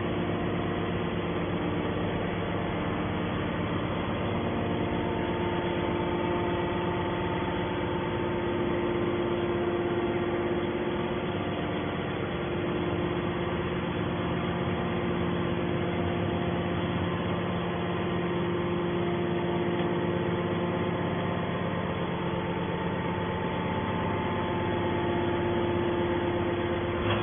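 Hydraulic scrap aluminium baler's motor and pump running, a steady hum with several steady tones.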